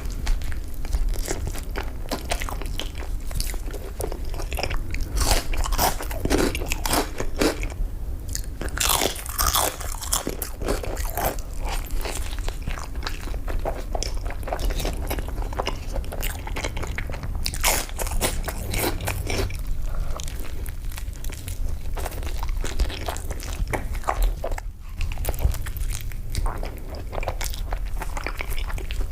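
Close-miked eating: crunchy bites into fast food followed by chewing, with many sharp crackling crunches in a dense, irregular run.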